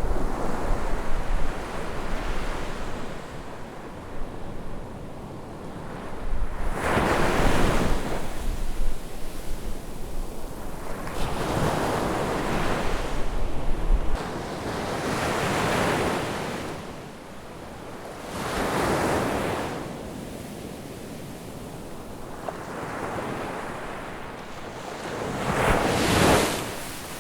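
Ocean waves breaking on a beach, each surge of surf swelling and falling back every three to four seconds. Wind buffets the microphone with a low rumble through the first half, stopping about halfway through.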